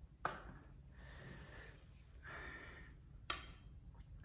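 Two sharp plastic clicks about three seconds apart, as a small plastic sauce cup's hinged lid is worked open. Between them come two noisy breaths through the nose.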